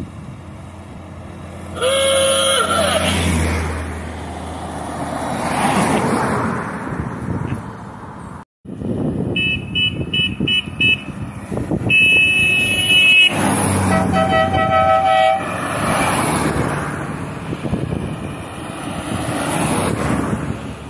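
Vintage cars driving past on a country road, sounding their horns: one horn blast about two seconds in, then a run of honks from several different horns between about nine and fifteen seconds in. Engine and tyre noise swells as each car goes by.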